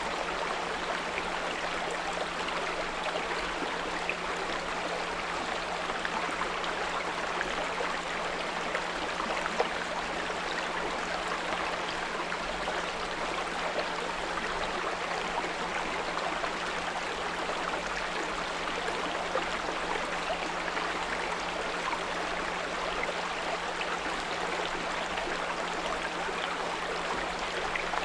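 A small brook running and gurgling steadily, with a low steady 174 Hz pure tone under it.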